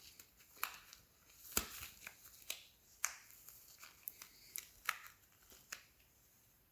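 Faint handling noise of a sticky rubber tire plug being pulled through the eye of a plug insertion tool: a dozen or so small, irregular clicks and rustles.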